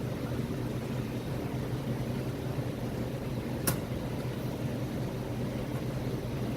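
Steady low machinery hum, like kitchen ventilation or refrigeration, with one sharp click a little past halfway.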